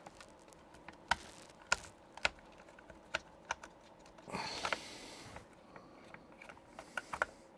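Sharp plastic clicks and taps, about seven spaced through the time, with a short scrape about four seconds in, as a small tool works at the back of a Commodore PR100 calculator's plastic case to get it open.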